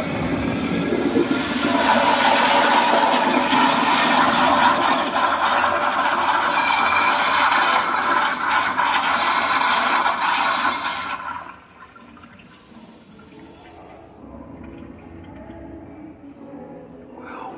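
A 1990s Kohler Kingston Waterguard 3.5-gallon wall-hung toilet on a flushometer valve, flushing a bowl loaded with toilet paper in a 40-foot paper test. The loud rush of water lasts about eleven seconds, then drops suddenly to a faint trickle as the bowl settles.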